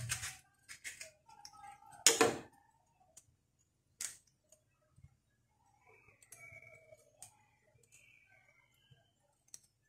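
Kitchen knife cutting into a lemon and knocking on the counter as it is set down: a few sharp clicks and knocks, the loudest about two seconds in and another near four seconds, then faint handling of the lemon as it is opened.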